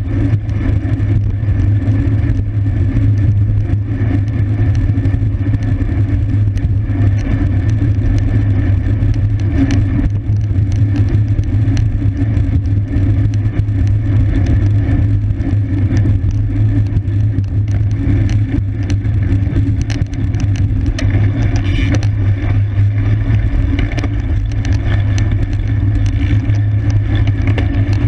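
Steady, loud low rumble of wind over the microphone of a camera riding on a racing bicycle in motion.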